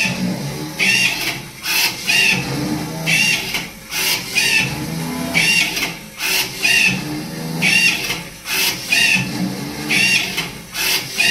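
Electric cotton wick making machine running, its press cycling about once a second with a short high-pitched squeak on each stroke as it forms a cotton wick, over a steady low hum.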